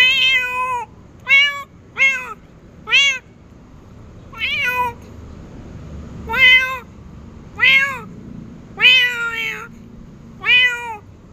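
Domestic cat meowing over and over, about nine short meows a second or so apart, one near the end drawn out longer.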